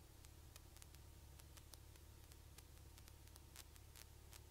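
Near silence: only a faint, steady low hum with scattered tiny ticks.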